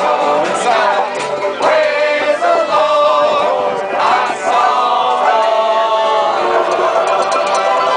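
Several voices singing together over acoustic string-band accompaniment in a bluegrass style.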